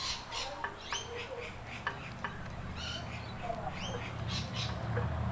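Small birds chirping a few short calls, mixed with light metallic clicks of washers being handled. A low steady hum sets in about two seconds in and grows louder near the end.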